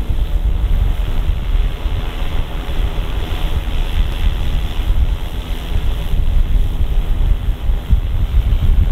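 Wind buffeting the microphone of a Callisto 50 drone in flight: a loud, steady low rumble with a hiss above it.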